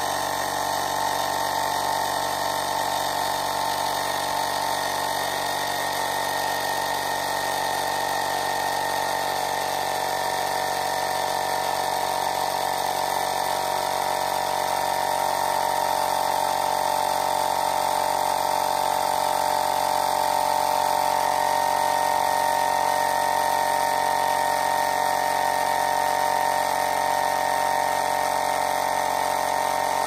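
Lydsto Duo Plus cordless air compressor running steadily as it inflates a basketball through a needle adapter toward a preset target pressure, getting slightly louder partway through.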